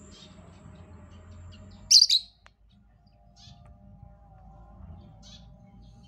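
Lovebird chirping: scattered short, high chirps, with one loud double chirp about two seconds in. A faint steady hum underneath stops at the loud chirp.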